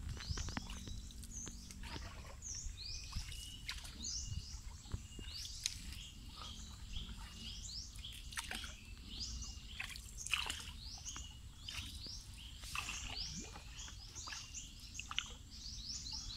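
Several birds chirping and calling in the forest canopy: a steady scatter of short, high sweeping calls, with a quick run of chirps near the end.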